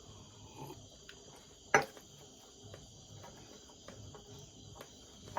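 A chorus of crickets chirping steadily, with one sharp click about two seconds in.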